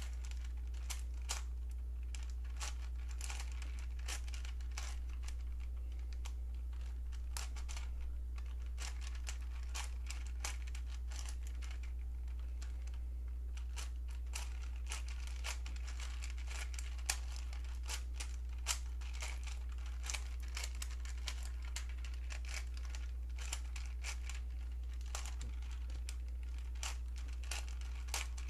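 Plastic Rubik's 4x4 cube being turned rapidly during a solve: quick, irregular clicking and scraping of its layers, crunchy-sounding because the new cube is unlubricated and very tight. A steady low hum runs underneath.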